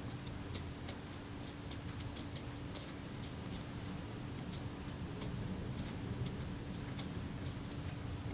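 Faint, irregular small clicks and ticks of hand tools on the tiny metal parts of a Synchro-Compur leaf shutter being worked on, over a steady low hum.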